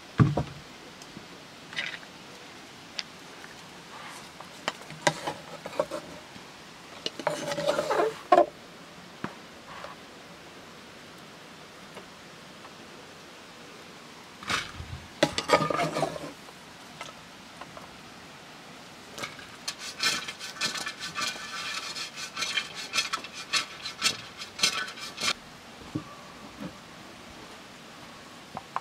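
Cooking utensils clinking and scraping against pots and dishes in scattered clatters, with a run of quick, repeated scraping strokes about two-thirds of the way through.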